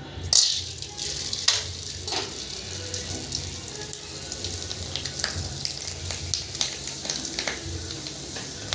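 Fryums sizzling and crackling in hot oil in a kadhai as they puff up, stirred with a perforated metal spoon. A sharp burst of sizzle comes a moment in, as the last pieces go into the oil, then a steady crackle with scattered clicks.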